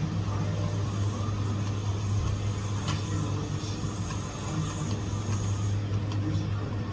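Welding equipment giving a steady low electrical hum, with a faint click about three seconds in.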